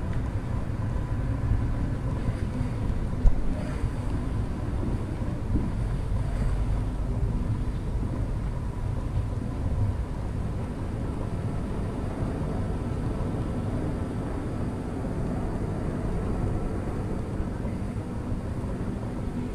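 Steady low rumble of background noise with a faint steady hum, and a single sharp knock about three seconds in.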